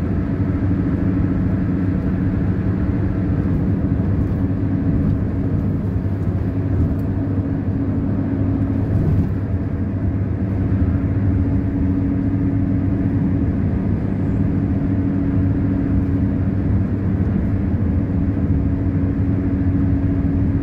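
In-cabin engine and road noise from a car cruising at steady speed on a highway: a steady low drone with an even hum underneath that holds constant throughout.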